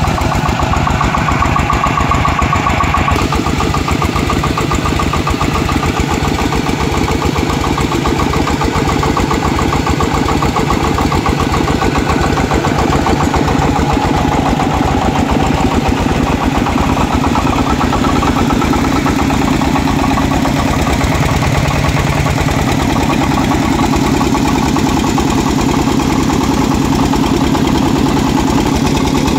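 Single-cylinder diesel engine of a two-wheel tractor running steadily, with rapid, even firing pulses, while it drives a water pump by a V-belt.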